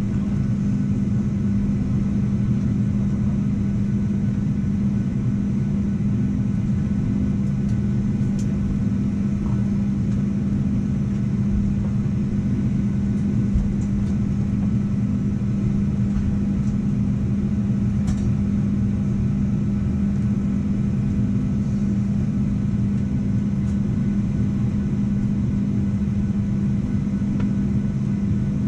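Steady cabin drone of a Boeing 737-800 standing at the gate: a constant low hum over a rumble from the aircraft's air and power systems, unchanging throughout.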